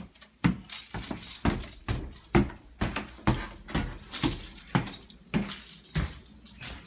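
Footsteps, about two a second, climbing stairs and then walking across a tile floor.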